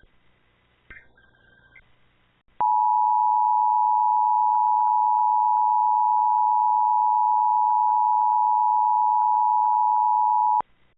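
Emergency Alert System attention signal: a steady two-tone alarm that starts abruptly about two and a half seconds in and cuts off abruptly about eight seconds later.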